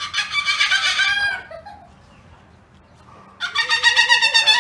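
Two loud bird calls, each about a second and a half long, the second starting about three and a half seconds in.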